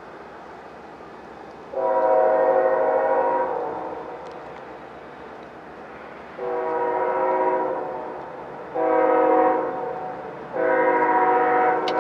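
Diesel freight locomotive's air horn, a chord of several notes, blowing the grade-crossing signal as the coal train approaches: two long blasts, one short, and a final long blast still sounding at the end.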